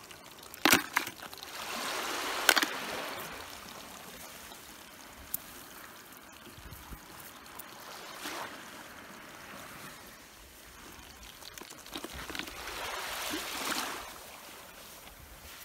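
Small waves washing on a sandy shore, coming in slow swells a few seconds apart. There are two sharp clicks in the first few seconds.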